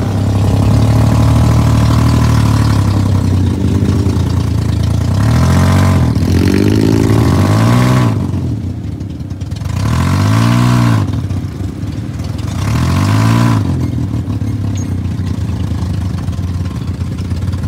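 Off-road dune buggy engine running as it drives, steady at first, then revving up and easing back down several times in the second half.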